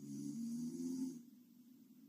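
A sleeping woman snores once: a low pitched snore with breathy hiss, lasting about a second.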